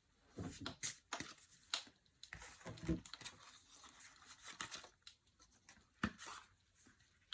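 Fortune-telling cards and their decks being handled: a string of short rustles, scrapes and light taps.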